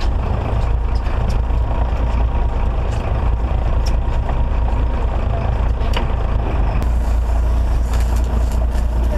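Fishing boat's engine running with a steady low drone, which grows stronger about seven seconds in.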